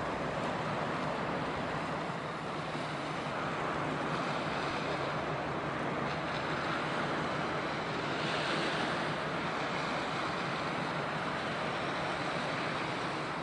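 Steady wind and sea noise: a constant rushing hiss with no distinct events.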